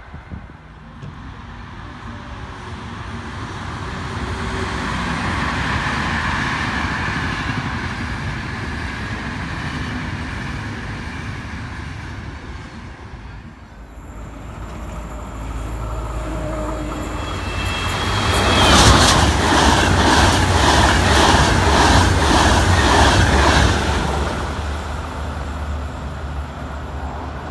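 Locomotive-hauled Intercity trains passing at speed on an electrified main line. Wheels clatter over the rails in a rapid regular rhythm under a steady low hum. The sound swells and fades once, then a second, louder pass comes about two-thirds of the way through.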